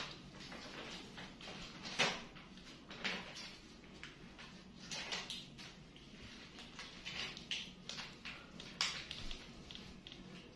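Irregular rustles, scrapes and light knocks, the loudest about two seconds in, as a small monkey clambers over a folding mesh baby bouncer and its metal frame.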